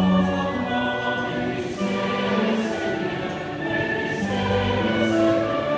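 A large congregation singing a slow Taizé chant in harmony, several voice parts holding long notes that change about once a second.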